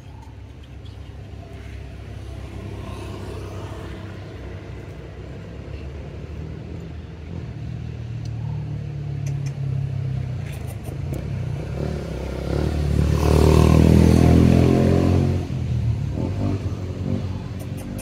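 A passing motor vehicle's engine, growing steadily louder, loudest about thirteen to fifteen seconds in, then dropping away.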